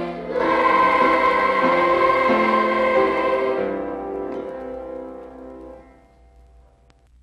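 A choir of camp girls singing the closing phrase of a team alma mater song, heard from an old LP. After a short breath at the start they sing on to a last held chord that fades away about six seconds in.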